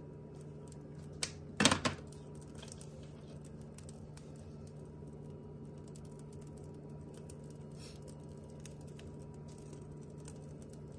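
A short clatter of a few quick knocks from a metal pepper tin being handled over the pan, about two seconds in, over a low steady hum; after it only a few faint light ticks.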